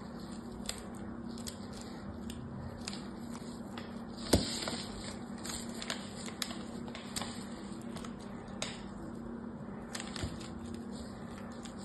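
A fingernail scratching and scoring lines into a hard bar of soap, making short, irregular crisp scratches and ticks. One much louder click or knock comes about four seconds in, and a steady low hum runs underneath.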